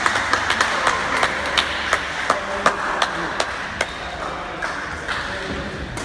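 Hands clapping in a steady rhythm, about three claps a second, over a wash of voices; the clapping thins out after about four seconds.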